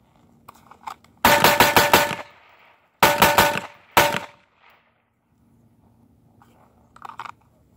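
Handgun fired in two fast strings of shots about a second apart, then one final shot, with steady ringing under the strings. The gap between the strings is the transition from the first target to the second.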